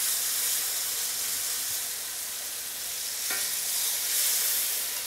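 Jam-glazed pork medallions searing in hot grapeseed oil in an enameled cast-iron pan: a steady frying sizzle as the pieces are laid in with tongs. A brief knock about three seconds in.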